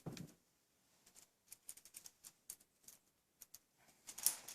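Balisong trainer being flipped closed in the hand: light, scattered clicks and clacks of the handles and blade knocking together, with a quicker run of clicks about four seconds in.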